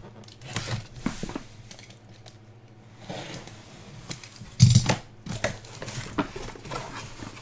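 A trading-card box and its packaging being cut and opened by hand: scattered clicks, scraping and rustling, with one louder thump about four and a half seconds in.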